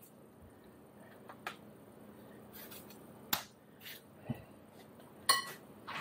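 A kitchen knife cutting strawberries held in the hand: a few scattered, short, sharp clicks and ticks over quiet room tone.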